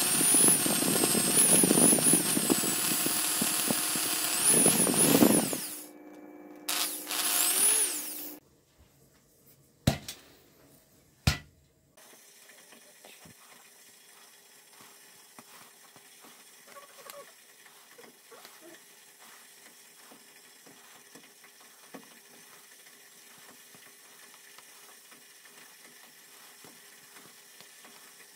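Electric whisk beating cream, its motor pitch wavering, stopping about five seconds in, then running again briefly. After two sharp clicks comes faint, irregular light ticking of a fork pricking holes in a sponge cake.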